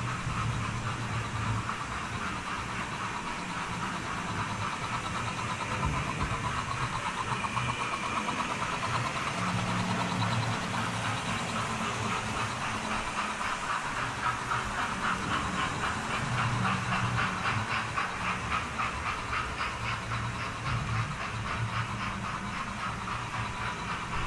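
Model steam trains running on a model railway layout: a steady electric-motor hum under a fast, rhythmic clatter of wheels on the track, strongest from about ten seconds in.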